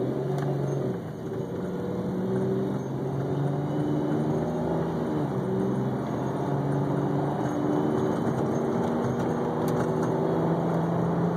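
BMW E46's engine heard from inside the cabin, accelerating from cold with a hesitant, jumpy note that rises and drops back in steps instead of climbing smoothly. The cold-start hesitation was traced by the owner to automatic transmission fluid about three quarts low.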